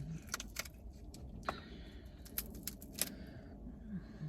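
Eating noises from a seafood boil mukbang: scattered sharp clicks and crackles of mouth smacks, chewing and food being handled, with a brief hummed 'mm' near the end.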